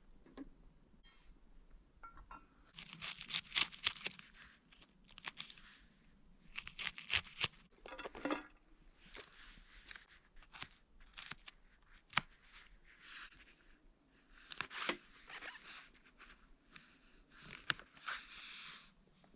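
Food packaging being torn open and crinkled in irregular rustling bursts, with sharp clicks and knocks as things are handled.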